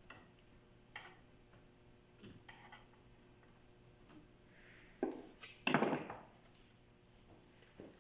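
Scattered clicks and knocks of photocopier drum-unit parts being handled, with a louder clatter about five to six seconds in, over a faint steady hum.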